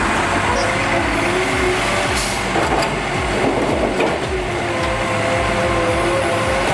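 Heavy diesel log-handling excavator working, its engine running steadily under a wavering hydraulic whine, with a few sharp knocks.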